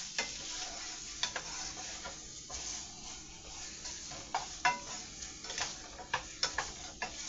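Sauce sizzling in a pot around pieces of fried chicken, with a utensil stirring and clicking against the pot at irregular moments.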